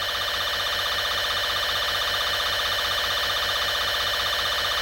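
Steady electronic emergency-alert alarm tone: a harsh, buzzing drone of several held pitches with a fast flutter, holding at one level throughout.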